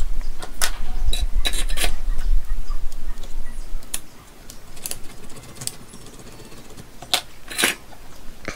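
Scattered clicks and taps of a screwdriver and a battery cell pack being handled on a wooden workbench, about nine in all, with a low rumble during the first few seconds.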